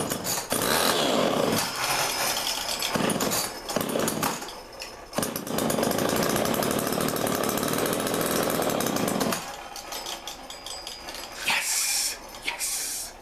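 Homelite two-stroke chainsaw engine, freshly rebuilt after sitting for years, running loudly: it catches suddenly, falters and surges a few times, holds steady at high speed for about four seconds, then drops to a quieter, uneven running with two short loud spurts near the end.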